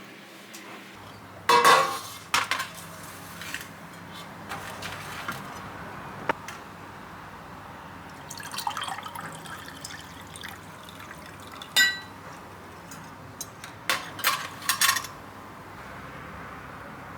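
Glassware and tableware clinking and knocking in short bursts over liquid sounds, as of a glass being handled and filled. The loudest clinks come about a second and a half in and again in a cluster near the end, with one clear ringing clink between them.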